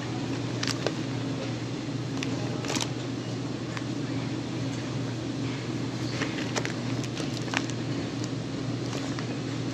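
Steady low machine hum with short crinkles and taps scattered through it, as plastic vacuum-packed beef roasts are picked up and handled.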